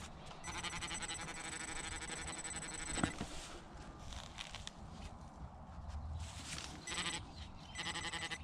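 Metal detector's electronic alarm tone, a rapid pulsing buzz that sounds off for a few seconds and again near the end, the pinpointer that is acting up. A single sharp knock about three seconds in.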